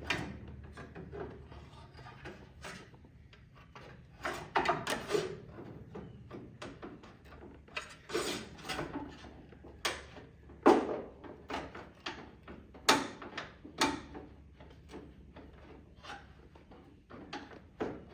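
Steel paintless dent repair rods knocking, clinking and scraping against car body metal in irregular strokes as they are worked behind a fender panel; the loudest knock comes about ten and a half seconds in.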